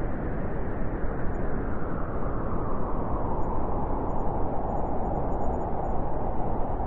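Blizzard wind blowing in a snowstorm: a steady, low rushing noise that grows stronger in a gust about halfway through.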